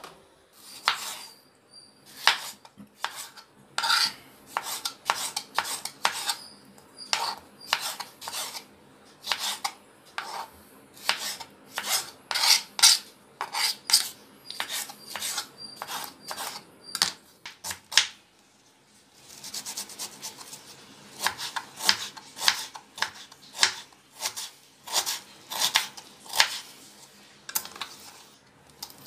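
Kitchen knife chopping tomatoes on a wooden cutting board: a long run of sharp taps about two a second, with a short pause partway through.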